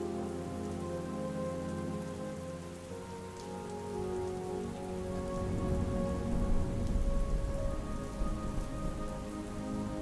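Steady rain pattering, under a soft ambient music bed of long held notes. A low rumble swells from about halfway through and eases off near the end.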